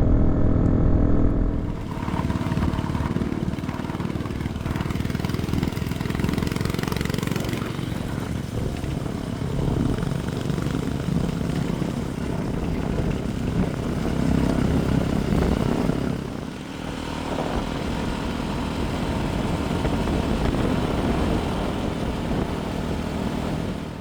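Motorcycle riding at speed: the engine runs steadily under a broad rush of wind and road noise, cutting off suddenly at the end.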